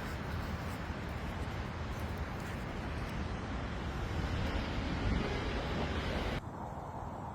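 Steady outdoor noise with no clear tones, dropping abruptly to a quieter, duller noise about six and a half seconds in.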